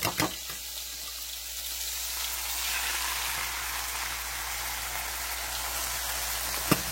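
Beaten eggs sizzling in a hot oiled pan: a steady frying hiss that swells about two seconds in. A few sharp knocks come at the start and one near the end.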